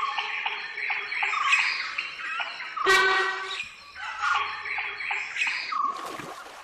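Forest birds chirping, with a single loud honking call about three seconds in lasting under a second: the alarm call of a sambar deer.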